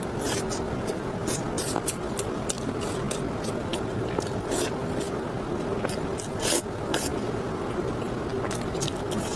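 Close-miked chewing and mouth sounds of a person eating, with many short, sharp wet clicks and smacks at irregular intervals over a steady low hum.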